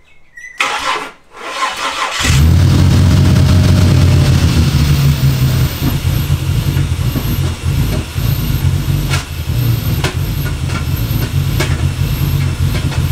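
Turbocharged Ford Barra inline-six engine in an EF Falcon cranked by the starter, catching about two seconds in and then running loud and uneven on a rough base tune, with a few sharp knocks. The knock is later traced to the unplugged MAP sensor port, which left a hole in the intake.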